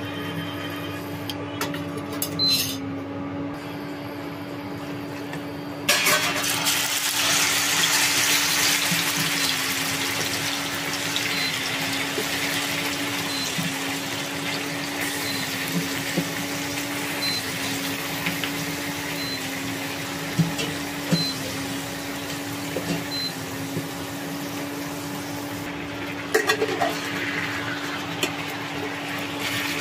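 Marinated chicken pieces going into hot oil in a pan and sizzling: the sizzle starts suddenly about six seconds in and slowly eases off. Near the end a spatula clicks and scrapes against the pan as the chicken is stirred, over a steady low hum.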